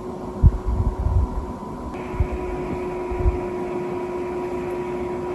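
Steady mechanical hum of room noise, holding two fixed tones, with a few low thumps in the first second and again about two and three seconds in.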